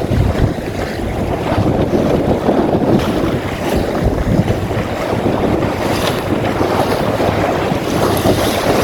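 Strong wind buffeting the microphone over water rushing and splashing along the hull of a small open Magnum 422 sailboat sailing fast.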